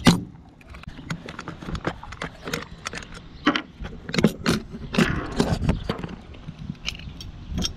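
Metal utility knife being unscrewed and its handle opened by hand: irregular clicks and small metal knocks, with a sharp click right at the start and a busier run of them a little past the middle.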